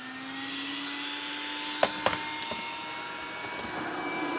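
Philco 1250 W vacuum cleaner motor running weakly through a series test lamp, its whine rising as it spins up and then holding steady. Two sharp clicks about two seconds in. The owner says it sucks almost nothing and is not running at full power.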